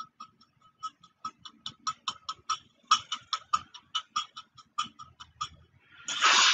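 Rhythmic ticking, about four to five short ticks a second, in a promotional video's soundtrack. A louder, fuller burst of sound comes in near the end.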